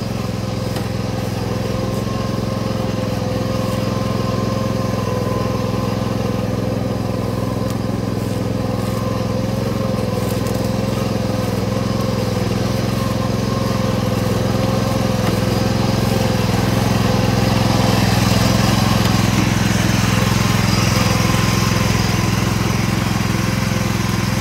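Craftsman garden tractor's 12 hp overhead-valve engine running steadily under load as it drives through a water-filled muddy ditch, with knobby tyres churning and splashing the water. The engine and the splashing grow louder a little past the middle.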